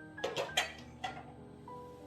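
Background music with slow held notes, overlaid by a quick cluster of three or four short sharp clicks or knocks in the first half-second and one more about a second in.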